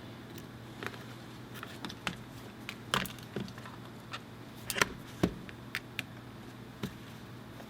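Scattered small clicks and taps of a loose standoff screwdriver bit, turned by hand, working standoff screws out of a MacBook Pro's metal top case. About a dozen irregular sharp clicks, the loudest near the middle, over a faint steady hum.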